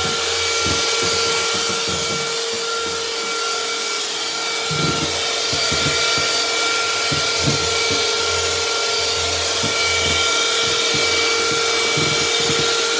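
Electric hand mixer running at a steady speed with a constant motor whine, its beaters whisking a thick white mixture in a plastic bowl.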